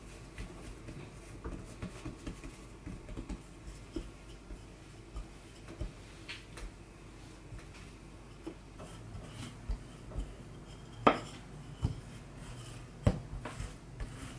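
Bread dough being pressed by hand and rolled out with a wooden rolling pin on a countertop: soft rubbing with scattered light knocks of the pin and hands on the work surface. Three sharper knocks come in the last few seconds.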